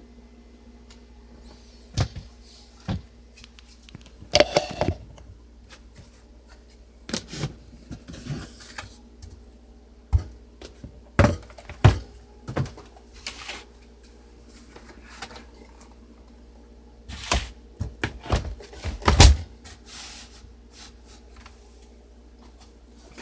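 Olivetti Underwood Studio 44 portable typewriter being worked and handled: irregular clunks and clicks of its mechanism, about a dozen knocks in small clusters with quiet gaps between, the loudest near the end. A steady low hum runs underneath.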